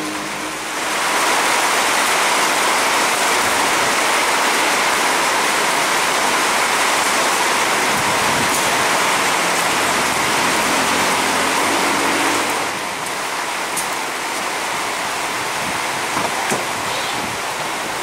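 Heavy rain pouring down, a dense steady hiss. It swells about a second in and eases back somewhat about twelve seconds in.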